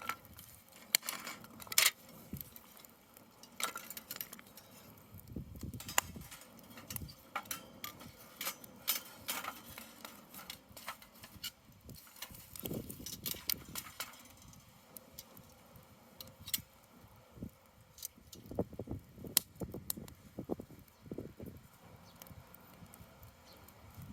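Metal camping gear being handled: scattered light clinks and knocks, with a few duller thuds now and then.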